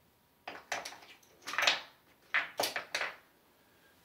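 Casino chips clacking as they are picked up, stacked and set down on a felt craps layout: several short, sharp clicks and brief rattles.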